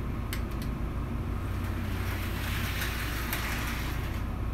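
Model steam locomotive running along the track under power, a steady low hum with a few light clicks, getting louder as it passes close about two to three seconds in. It is running smoothly now that its loose connecting rod has been tightened.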